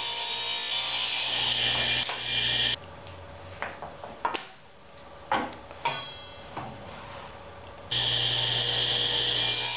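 Ridgid table saw running steadily as a small wooden block is ripped with a push stick. About three seconds in it drops away abruptly to a quieter stretch of a few sharp knocks as wood blocks are handled and set down on the saw table, and near the end the saw is running again.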